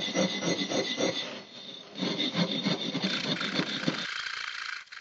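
A short steel pipe scraping a groove into soft insulating firebrick by hand, in quick back-and-forth rasping strokes, about four a second. There is a brief pause about a second and a half in.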